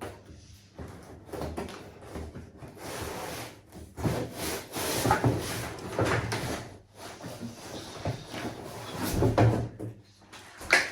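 Cardboard box being opened and handled: irregular scraping and rubbing of cardboard, louder in stretches about four seconds in and again near the end.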